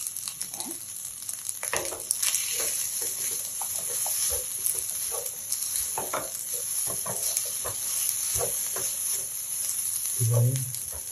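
Fried rice sizzling in a nonstick frying pan while a slotted spatula stirs it, with irregular scrapes and taps against the pan.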